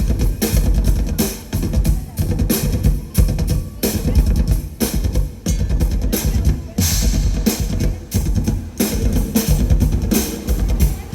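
Music driven by a drum kit: bass drum and snare hits with cymbals over a low bass line.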